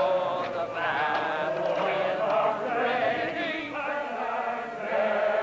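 A large chorus of men's voices singing together.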